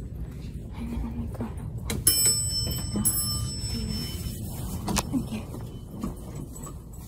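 Two bright metallic clinks that ring on briefly, about two seconds in and again a second later, with a sharp click near the end, over a low steady rumble.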